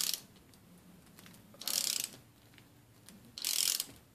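Socket ratchet wrench clicking in three short bursts about every second and a half to two seconds, as it is swung back between strokes while turning the press screw of a chain breaker tool that pushes a pin out of a motorcycle chain.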